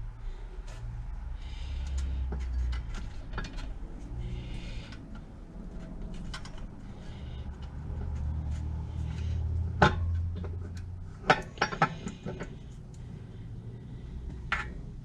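Metal engine parts and tools clinking and knocking as a Briggs & Stratton engine is taken apart by hand, with a few sharp knocks about ten seconds in, a quick cluster just after, and one more near the end.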